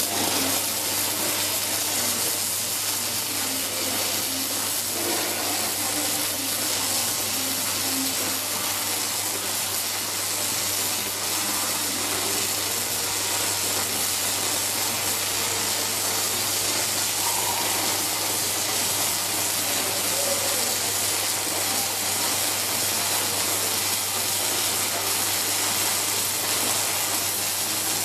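Robotic arc welding: a steady, even hiss over a low constant hum, with no break through the pass.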